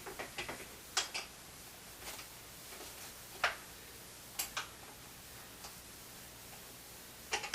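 Light, scattered clicks and knocks of stroller parts being handled while the front wheel is fitted through the frame, about six separate clicks over several seconds.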